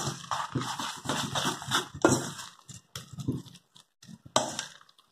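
A spoon stirring and folding a thick, wet chicken and cornmeal paste in a stainless steel bowl: irregular squelches, with clicks and scrapes of the spoon against the metal.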